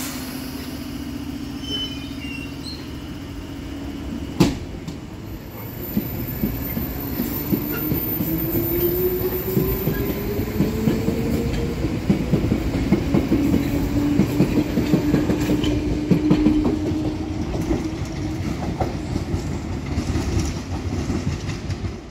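London Underground 1973 Stock Piccadilly line train standing with a steady hum, a single sharp clunk about four seconds in, then pulling away: a motor whine rises in pitch as it gathers speed, and the wheels clatter rhythmically over rail joints as the cars pass.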